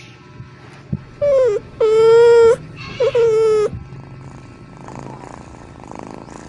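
A cat meowing three times in a row, the middle meow the longest and loudest.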